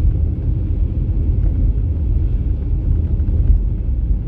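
Steady low rumble of a car's cabin at highway speed, with engine and tyre noise on a snowy road.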